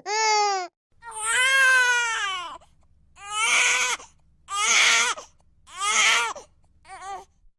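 Crying sound effect for a baby pig character: a series of pitched, baby-like wailing cries. A long wail about a second in is followed by three shorter sobs, then a few quick short sobs near the end.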